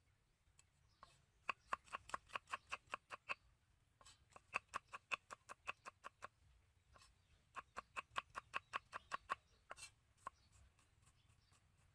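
Knife slicing garlic cloves on a wooden chopping block: three quick runs of knocks, about six a second, then a few single knocks near the end.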